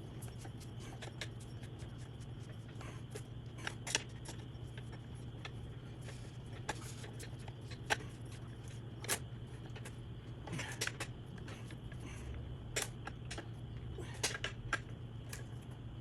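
Scattered sharp clicks and short metallic clinks of hand tools and parts being handled during reassembly of the motorcycle's front end, over a steady low hum.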